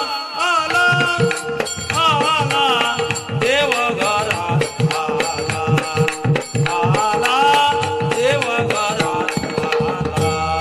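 Varkari bhajan: a singer carries an ornamented devotional melody with wavering, gliding pitch over a steady held drone. Regular drum strokes and cymbal clicks keep the beat underneath.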